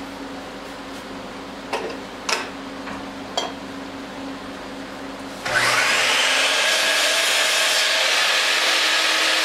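A few light knocks, then about five and a half seconds in a handheld power tool spins up and runs steadily, working on wood.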